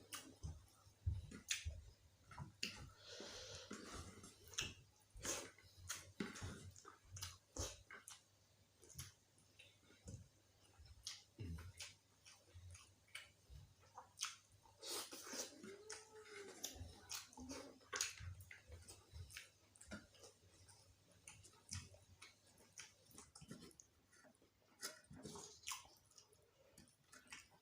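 Close-miked eating sounds: irregular wet chewing, mouth clicks and crunching as a person eats gulai kikil with raw lalapan vegetables.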